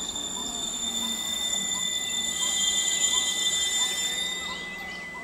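12-coach electric multiple unit (EMU) local train creeping up to the platform: a steady high-pitched whine, with a hissing rush that swells in the middle and fades near the end.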